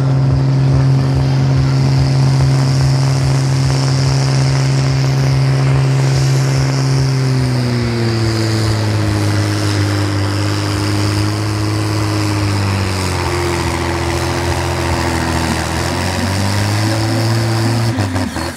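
Farm tractor's engine running at full load while pulling a weight-transfer sled. It holds a steady pitch at first, then drops in pitch twice as it bogs down under the growing drag, picks up slightly near the end, and cuts off suddenly.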